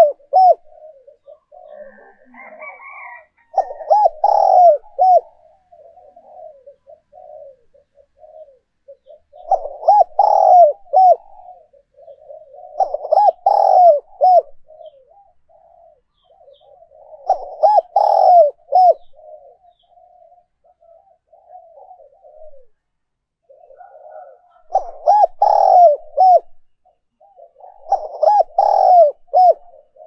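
Spotted dove cooing: a loud phrase of several low, rounded coo notes every few seconds, with softer cooing between. It is a decoy dove's call, used to set other doves cooing.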